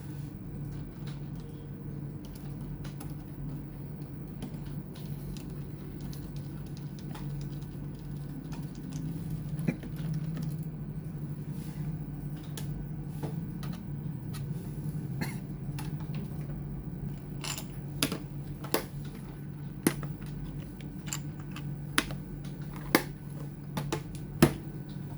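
Sharp plastic clicks and taps from handling a laptop during disassembly. The clicks come sparsely at first, then louder and more often in the last third, over a steady low hum.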